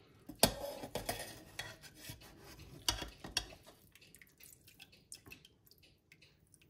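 Metal ladle clinking and scraping against the pot of a slow cooker while scooping beef cheeks out of their rendered fat. A few sharp knocks, the loudest about half a second in, with more near one second and around three seconds, then lighter scraping.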